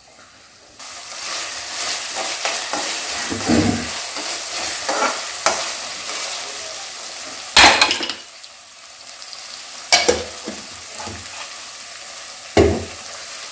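Chopped onions with ginger-garlic paste sizzling in oil in an aluminium kadai. They are stirred with a perforated steel ladle that scrapes and knocks against the pan several times, the sharpest knock about eight seconds in. The sizzle starts about a second in.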